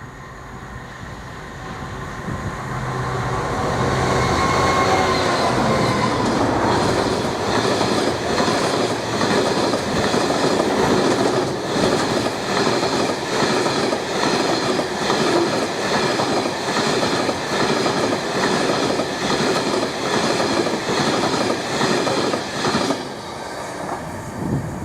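Diesel-hauled train passing at speed: the locomotive's engine note rises and then falls in pitch as it goes by, followed by a long run of rhythmic wheel clatter over rail joints as the wagons pass. The clatter drops away about 23 seconds in.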